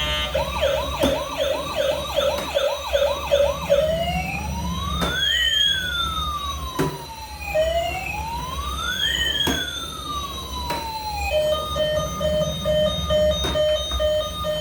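Electronic siren of a toy emergency vehicle cycling through its tones: a fast run of short rising whoops, then two slow rising-and-falling wails, then about a second after the second wail a steady pulsing beep.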